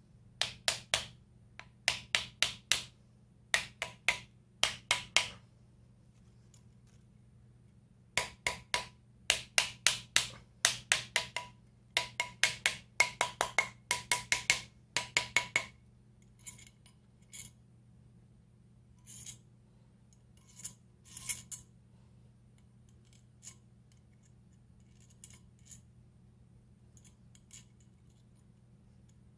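Quick runs of sharp hammer taps on metal, each with a short ring, three to four taps a second. After about sixteen seconds only scattered lighter clicks and clinks remain.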